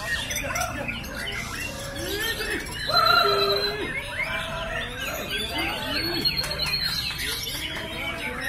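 Many caged white-rumped shamas (murai batu) singing at once, a dense tangle of overlapping whistles and trills, loudest about three seconds in.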